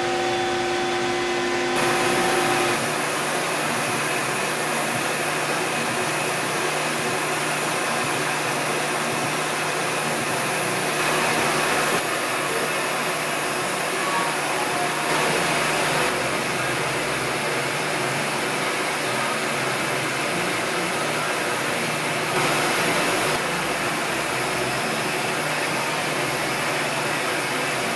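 A shop machine's motor hum, with a steady tone, cuts off two to three seconds in. After it, a steady rushing blower noise runs without a break.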